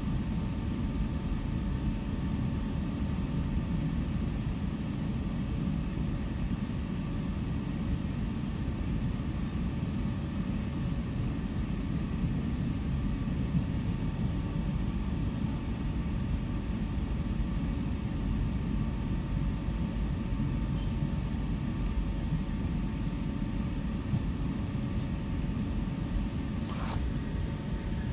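Steady running rumble of a moving electric suburban train heard from inside the carriage, with a faint constant whine above it. One brief click near the end.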